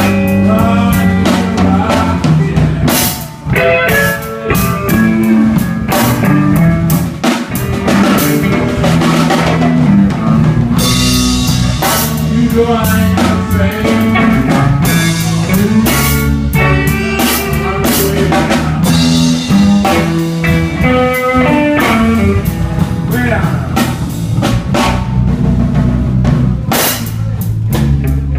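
Live blues band playing an instrumental passage: electric guitar lines over bass and a drum kit with rimshots.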